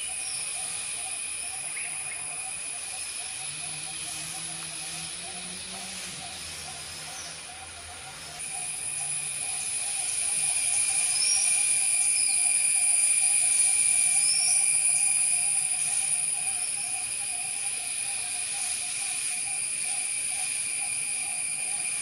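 Forest ambience dominated by a steady, high-pitched insect drone that grows louder about eight seconds in, over a lower, rapidly pulsing buzz, with a few short bird chirps.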